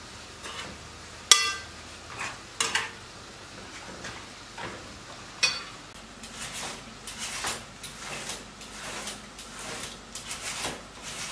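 A metal spoon clinking and scraping in an enamel bowl as a minced-meat and onion filling is stirred, with a few sharp ringing clinks; then a hand-held shredder cutting cabbage on a wooden board in a run of short scraping strokes, two or three a second.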